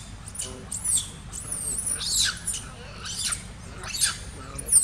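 Infant long-tailed macaque calling with repeated high-pitched squeals, about three a second, each sliding down in pitch.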